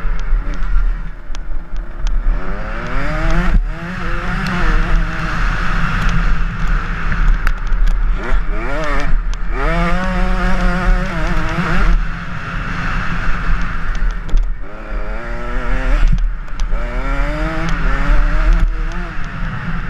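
Motocross bike engine heard from on the rider, revving up and shifting through the gears, its pitch climbing, breaking off and dropping again several times as the throttle is opened and closed.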